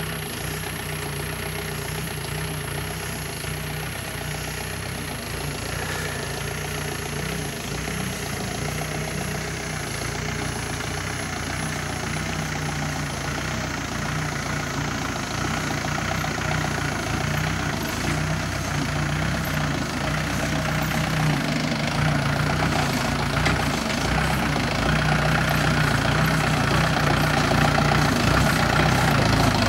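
Mahindra jeep's diesel engine running at low revs as the jeep crawls over a rocky track, growing steadily louder as it approaches.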